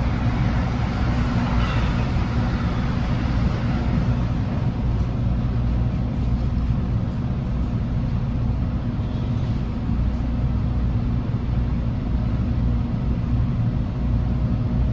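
Steady low hum inside an NJ Transit Multilevel passenger coach standing at a station, its onboard equipment running while the train is stopped.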